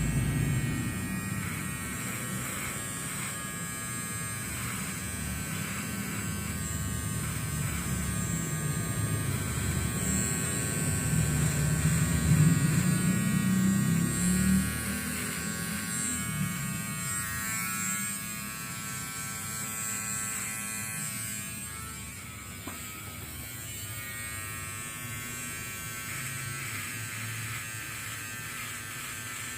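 Electric hair clipper buzzing steadily as it is run over a scalp for a head shave, with a shifting low rumble as it works across the head. It is loudest about halfway through and eases off later.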